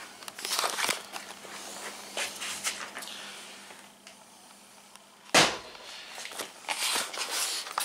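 Handling noise around a teardrop trailer's side door as it is opened: scattered clicks, rustles and footsteps, with one sharp knock about five seconds in.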